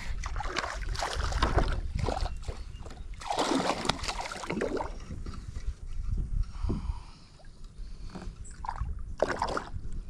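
Water sloshing and splashing at the side of a kayak as a hooked bass is brought in, with scattered knocks and rustles of handling.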